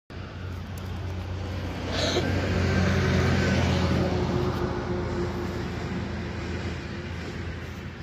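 Ride-on miniature railway locomotive running: a steady low engine hum with a faint higher tone, growing louder about two to three seconds in and then fading away.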